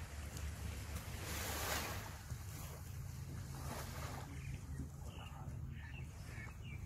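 Small waves washing onto the sand, with one louder wash about a second in and another near the middle, over a steady low hum. Faint short high chirps come in the second half.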